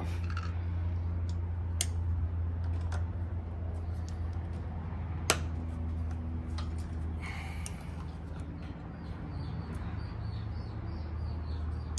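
Scattered light metallic clicks and taps from hand tool work on a motorcycle battery's terminal bolts, with one sharper click about five seconds in, over a steady low hum.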